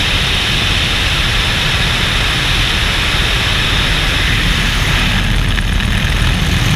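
Helicopter in flight: steady, loud rotor and engine noise mixed with wind rushing over a camera mounted on the outside of the fuselage.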